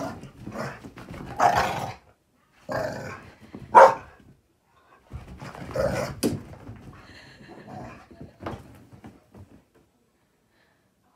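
Two dogs play-fighting, growling in several rough bursts as they wrestle. The growling sounds mean but is play.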